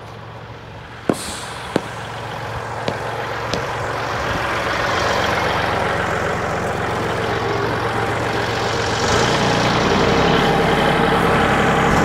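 Compact tractor-backhoe's engine running, growing steadily louder from about four seconds in as it is throttled up. A few sharp knocks in the first few seconds.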